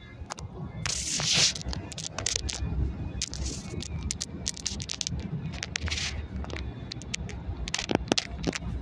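Car tyres rolling over a gravel road, heard from inside the cabin: a steady low rumble with many crackling ticks and pops of stones under the tyres.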